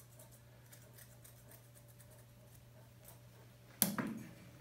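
Faint, irregular snipping of 48-tooth thinning shears cutting the hair along the edge of a dog's ear, over a steady low hum. Near the end, one sudden loud bump.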